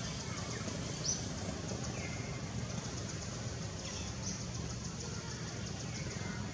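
Outdoor ambience: a steady low rumble with a few short, high, falling bird chirps, one about a second in, another around two seconds and another around four seconds.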